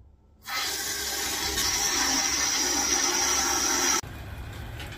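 Water rushing through a braided supply hose into a capped drain pipe as a stop valve is opened to fill the drain for a pressure test: a loud, steady hiss that starts about half a second in, with a high whistle joining it, and cuts off suddenly about four seconds in.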